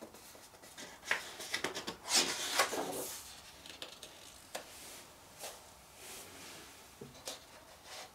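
A photobook page being turned by hand: a paper rustle and flap from about a second in, loudest around two seconds, followed by a few faint soft clicks of handling.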